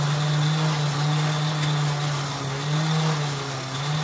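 Battery-powered electric motor and gear mechanism of a 1950s–60s W-Toys tin candy vending machine bank running, a steady hum, as the coin-operated clown mechanism goes through its candy-delivery cycle.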